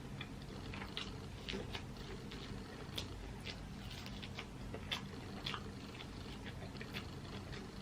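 Boiled crawfish being shelled and eaten: irregular small cracks and clicks of shells breaking, with chewing, over a faint steady low hum.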